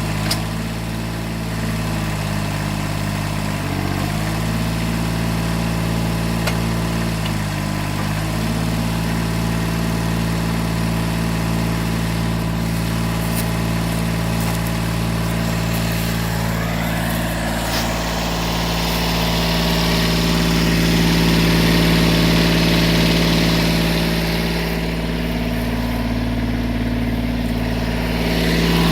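A 1978 Kubota B6100E tractor's small three-cylinder diesel running steadily at under half throttle while driving a three-point backhoe off its hydraulics. The engine note sags briefly about four and eight seconds in, and a hiss comes in over it from about eighteen seconds in as the sound grows louder.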